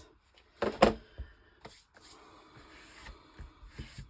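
Crafting materials handled on a worktable: one sharp knock about a second in, a few lighter taps, then soft rubbing and small clicks.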